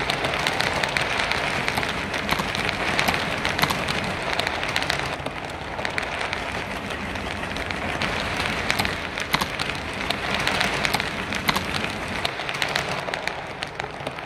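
HO scale model container wagons rolling over the track: a steady rattling patter of many small wheel clicks, fading away near the end as the last wagon passes.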